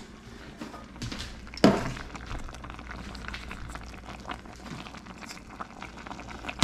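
Peaches simmering in a pot with soft bubbling and small clicks of stirring, and one sharp knock on the pot about one and a half seconds in.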